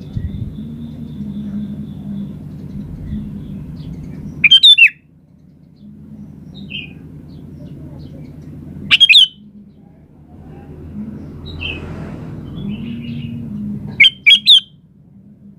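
Sooty-headed bulbul (kutilang) calling in three loud, short bursts of quick, bubbly notes, about four to five seconds apart, with a few faint single notes in between. A steady low rumble runs underneath.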